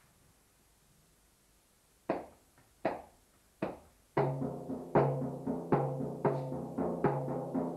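Live drumming begins about two seconds in, with three single ringing strikes roughly a second apart. From about four seconds in it settles into a steady beat of roughly two strikes a second over a sustained low pitched drone.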